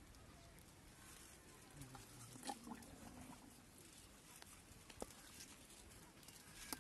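Near silence: faint outdoor ambience with a few faint scattered clicks and taps.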